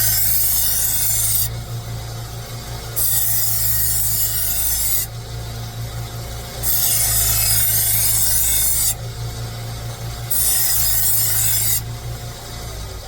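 Motor of a three-step knife-sharpening machine humming steadily while a kitchen knife is drawn across its 200-grit abrasive: four hissing, rasping grinding passes of about two seconds each with short pauses between, the first already under way at the start. This is the coarse first stage, setting the edge.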